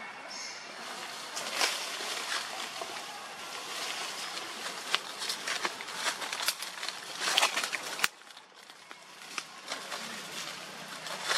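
Dry fallen leaves rustling and crackling as monkeys move over leaf litter: a run of irregular crisp crackles over a soft rustle. It goes quieter about eight seconds in.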